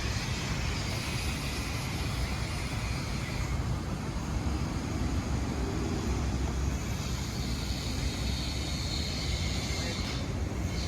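Steady city traffic noise, a continuous low rumble with a hiss above it and no distinct events.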